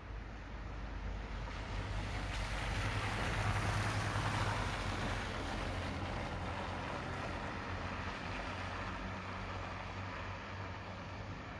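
A car passing on a wet road: tyre hiss over a low engine hum that swells to a peak about four seconds in, then slowly fades.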